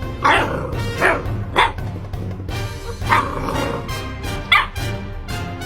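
A dog barking five times in short, sharp barks, over steady background music.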